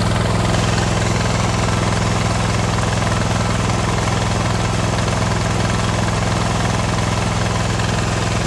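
Kohler Command 23 V-twin engine on a John Deere F687 mower running steadily at idle.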